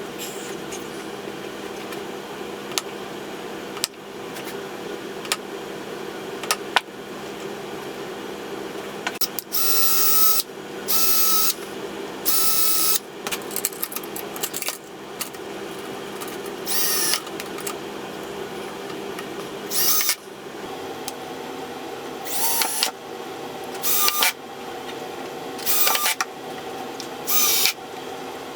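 Power drill running in short bursts, about nine times, each with a steady whine, over a constant background hum in the workshop.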